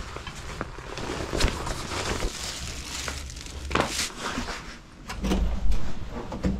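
Rustling and handling noise as riding gloves and clothing rub close to a body-worn camera microphone, with scattered clicks and knocks. A louder low bump comes about five seconds in as a hotel room door is pulled open, with a latch click near the end.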